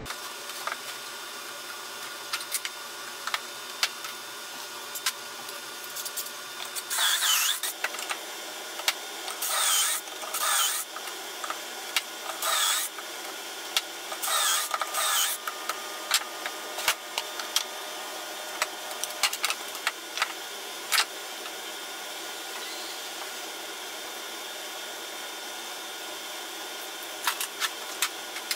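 Cordless drill boring pocket holes through a Kreg pocket-hole jig into a pine board: several short bursts in the first half, each winding down with a falling whine. Sharp clicks and knocks from clamping and handling the jig and boards come before and after.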